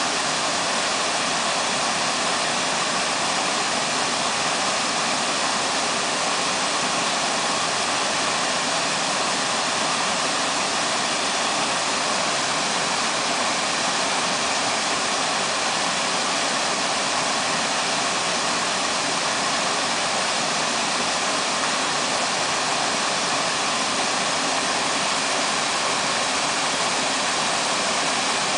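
A waterfall's steady rush of falling water: an even, unbroken hiss with little deep rumble.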